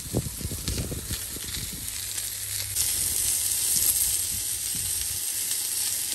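Chicken drumsticks sizzling on the hot grate of a portable gas grill as they are turned with tongs; the sizzle grows louder about three seconds in.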